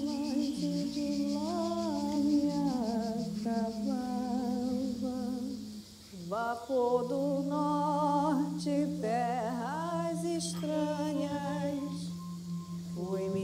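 Background music: a wordless voice humming a slow, wavering melody over a held low drone note. It breaks off briefly about six seconds in, then resumes.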